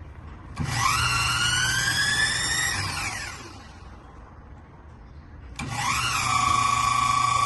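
Electric drill spinning a 24-volt 100-amp truck alternator, run twice. The first run whines up in pitch as it speeds up, then winds down. The second starts about halfway through and holds steady. It is a bench test of whether the alternator charges, and the alternator is found to be working.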